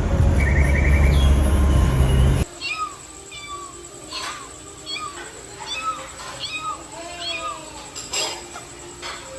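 Cat meowing: many short, high mews in quick succession. They follow music with bird chirping, which cuts off abruptly about two and a half seconds in.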